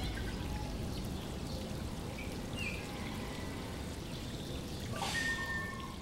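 Steady trickling, flowing water with a few faint, short, high chirps over it. About five seconds in comes a short sharp sound, followed by a brief held high tone.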